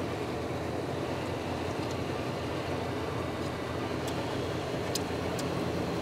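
Hot air rework gun blowing a steady stream of hot air onto a surface-mount video memory chip to melt its solder for removal. A few faint light ticks near the end.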